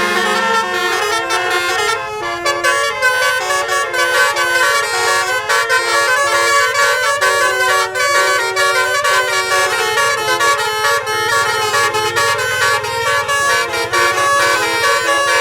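A tour bus's telolet basuri horn, a bank of electric trumpet horns, plays a fast melody note by note. The pitch steps up and down several times a second without a break.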